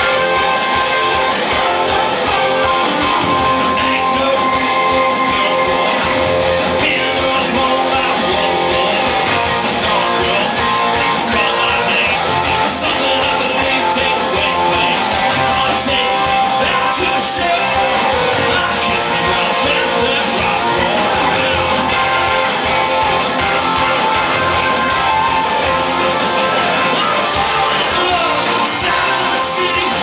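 Rock band playing live, heard from the crowd: guitars, bass, drums and keyboard in a steady full-band groove.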